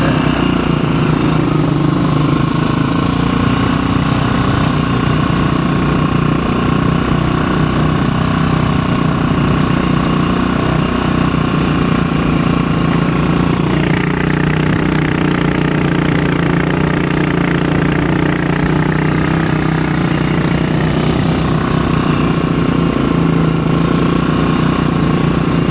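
Motorcycle engine running steadily while riding along, heard from the rider's position, its tone shifting slightly about halfway through.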